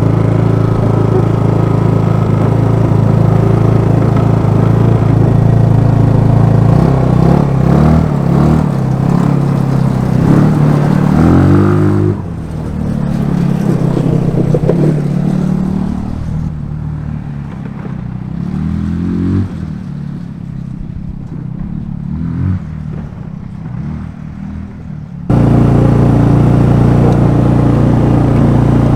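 A single-cylinder four-stroke GY6 150cc scooter engine in a Power Wheels jeep runs steadily, then is revved up several times. Its level drops suddenly partway through and jumps back to loud, steady running near the end.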